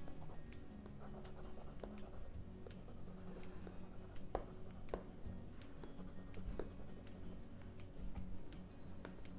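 Water-soluble wax crayon (Caran d'Ache Neocolor II) rubbing and scratching on paper as colour is laid in, with small scattered clicks, over soft background music.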